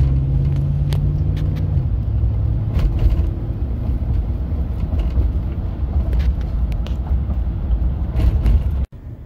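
Chevy 5.3-litre LS V8 running, heard from inside the truck's cab, with a steady low engine note that drops a little about two seconds in as the revs ease from about 2,000 rpm toward 1,000 rpm. The sound cuts off abruptly near the end.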